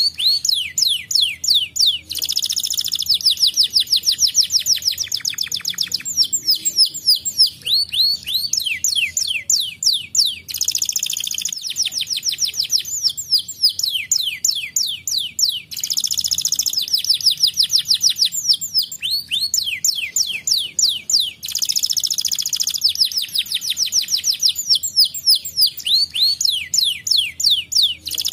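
Domestic canary singing a long, fast song: rapid trills of repeated high, falling notes broken by buzzy rolls, on and on without a pause. It is used as stimulation song to prompt other canaries to sing.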